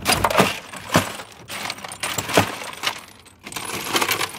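Ice cubes clinking and clattering in a freezer's ice bin as a hand rummages through them for a cube: a run of separate sharp clinks, bunching together near the end.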